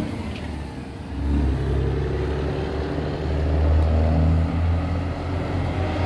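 Semi trucks' diesel engines running as the rigs roll slowly past in a low, steady drone. It swells about a second and a half in as the next truck comes up.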